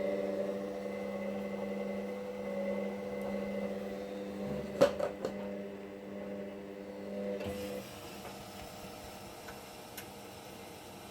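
Hoover Dynamic Next machine on its drying cycle, its motor giving a steady hum. A sharp knock and a couple of lighter clicks come about halfway through. About two-thirds of the way in the hum drops and goes quieter, and a single light click comes near the end.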